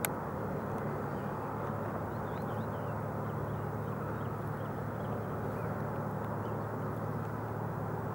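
Steady low hum and rumble, with a sharp click right at the start and a few faint bird chirps in the middle.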